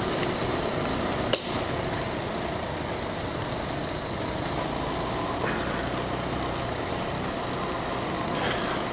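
Motorcycle engine running steadily while riding on a wet street, with a steady rush of road noise and one sharp click about a second and a half in.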